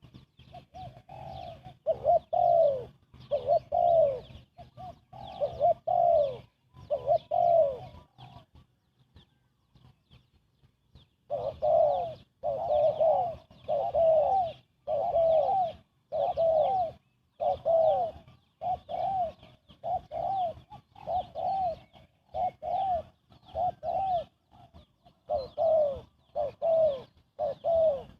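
Spotted dove cooing fast: a run of short, arched coos about one a second, with one pause of a few seconds partway through before the series starts again.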